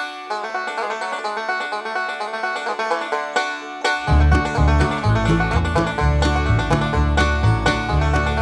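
Background music of quick plucked-string notes, country or bluegrass in style; a heavy bass line with a steady beat comes in about four seconds in.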